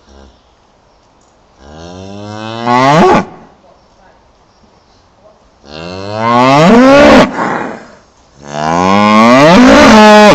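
A cow mooing three times, long loud calls that each rise in pitch and swoop upward at the end.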